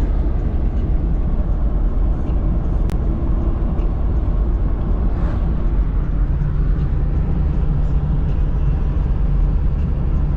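Steady low rumble of a moving vehicle's road and engine noise, with no change in pitch, that starts and cuts off abruptly.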